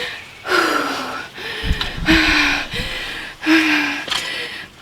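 A woman sobbing and gasping for breath: several crying, breathy sobs in a row, about one a second.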